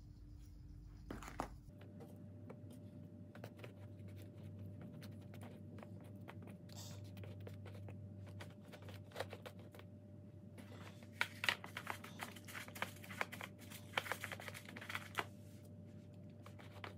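Scattered light clicks, taps and rustles of hands handling fish pieces being coated in breadcrumbs, busier in the second half, over a faint steady hum.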